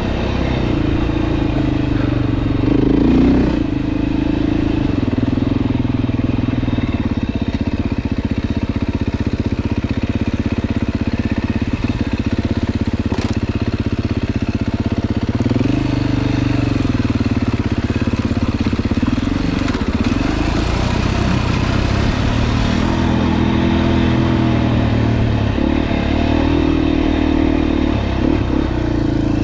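Single-cylinder four-stroke dirt bike engine running while riding, its revs rising and falling repeatedly: climbs about 3 seconds in, around 16 and 20 seconds, and again near the end.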